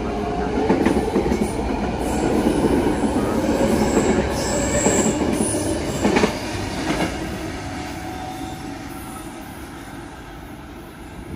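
BART train running on steel rails, wheels squealing with a high whine and a few sharp clicks over the rail joints, the sound fading away over the last few seconds as the train draws off.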